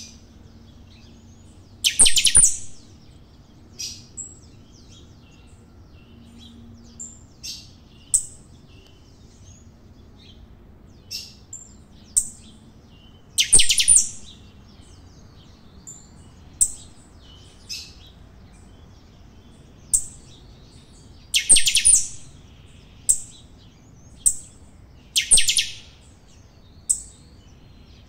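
Caged finch singing: short high chirps every second or two, broken by four louder, fuller bursts of warbling song.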